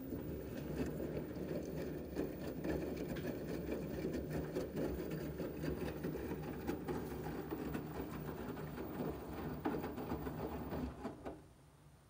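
LG front-loading washing machine in its main wash, the drum turning: a steady motor hum with water and wet laundry sloshing and tumbling. It stops near the end as the drum pauses.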